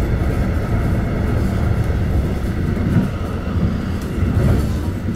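Steady low rumble of a moving train, heard from inside the carriage as it runs along the track.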